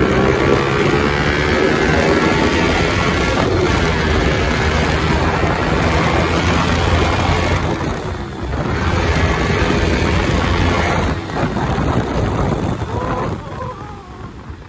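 Yamaha R15's single-cylinder engine running loud through an aftermarket silencer as the bike is ridden at speed, mixed with heavy wind noise. The sound dips briefly about eight seconds in and eases off near the end.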